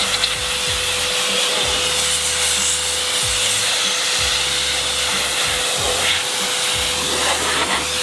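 Blo Air-GT car dryer blowing air through its long hose, a steady loud rush of air with a constant tone running under it.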